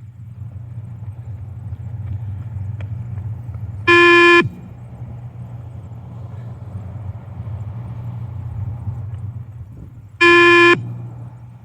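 Two beep-test timing beeps from the recorded tape, buzzy tones about half a second long and about six seconds apart, each marking the time by which the runner must reach the line on that shuttle. A steady low hum runs underneath.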